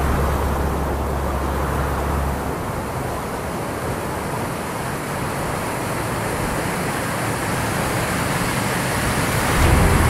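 Steady rushing roar of a large waterfall and whitewater river. A deep low hum underneath stops about two seconds in and comes back near the end.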